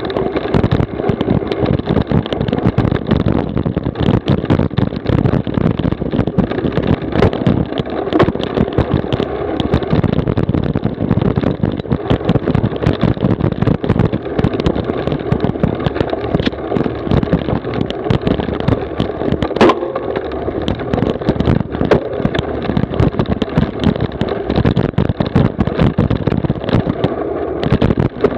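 Cyclocross bike ridden fast over bumpy dirt and grass: a continuous rattle and jolting of the bike, with tyre noise and wind on the microphone. One harder knock about two-thirds of the way through.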